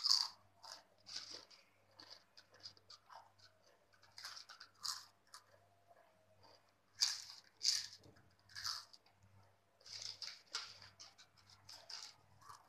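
A girl biting and chewing Bingo Yumitos red chilli potato chips: irregular crisp crunches with quieter chewing between, the loudest crunches coming in clusters about seven and ten seconds in.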